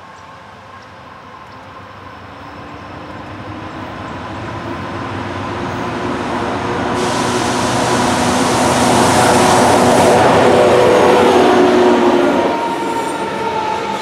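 An EMD diesel freight consist led by an SD70MAC, whose 16-cylinder two-stroke engine grows steadily louder as the locomotives approach. The engines are loudest as they pass, about ten seconds in, and drop off sharply near the end, leaving the sound of freight cars rolling past.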